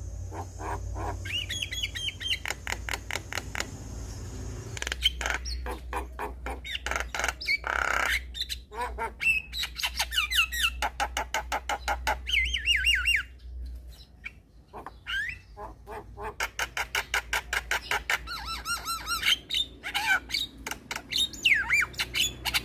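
Javan myna (jalak kebo) singing: long runs of rapid, harsh chattering notes mixed with squawks and short sweeping whistles, broken by brief pauses.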